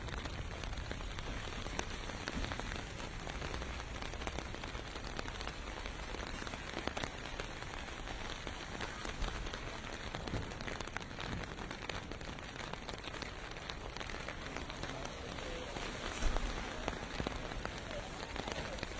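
Steady rain pelting pavement: a dense, even hiss dotted with the ticks of single drops. A brief low thump stands out near the end.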